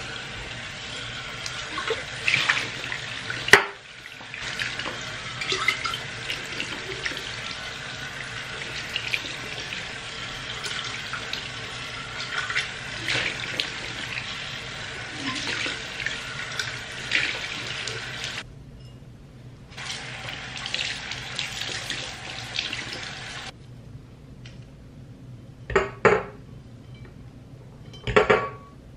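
Bathroom sink faucet running water into a glass vase as it is rinsed by hand, with a sharp knock a few seconds in. The water stops briefly about two-thirds through, runs again, then shuts off, followed by two short knocks near the end.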